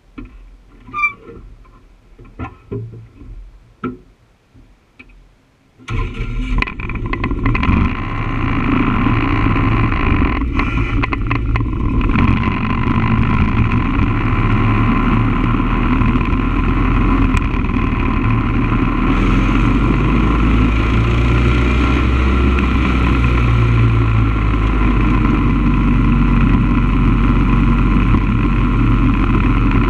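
A few scattered clicks and knocks, then about six seconds in a motorcycle engine starts suddenly and runs steadily as the bike rolls off slowly.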